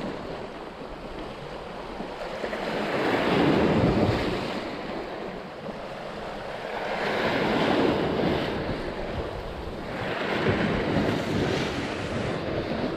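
Small sea waves washing against a rocky shore, the wash swelling and fading three times, with wind buffeting the microphone.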